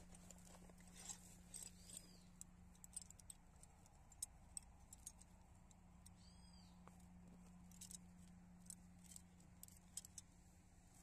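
Near silence: a low steady hum with faint, irregular small clicks and rustles scattered throughout.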